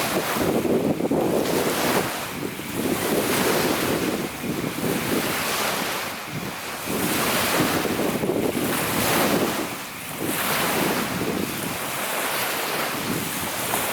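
Strong wind buffeting the microphone, with lake waves washing onto the shore in surges about every two seconds.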